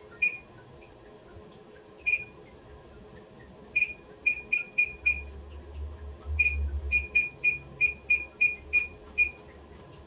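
Control panel of a Panasonic NA-FD85X1 top-load washing machine beeping as its buttons are pressed to set the wash program: about fifteen short, high single beeps, a few well spaced at first, then in quick runs of three or four a second.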